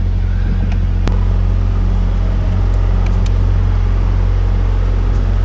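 Steady low hum of an idling engine, with a sharp light click about a second in and a few faint ticks from battery cables and terminals being handled.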